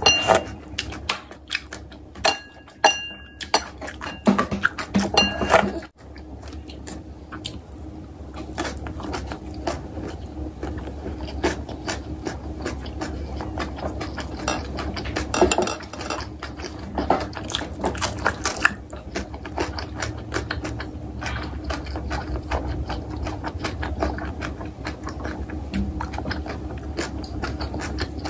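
Close-up eating sounds: chewing of kimchi and ramyeon, with sharper clicks and taps of a wooden spoon and chopsticks on ceramic bowls in the first six seconds. A steady low hum runs underneath.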